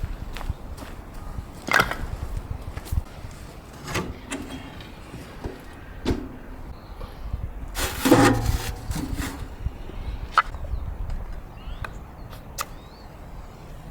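Scattered knocks and clicks over a low, steady wind rumble, with a louder rustling burst about eight seconds in.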